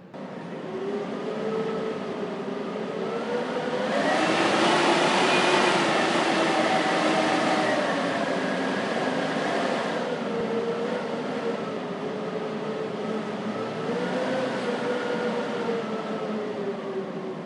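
Blizzard wind howling: a steady rushing noise with whistling tones that slowly rise and fall, swelling to its loudest about four to six seconds in and easing somewhat after.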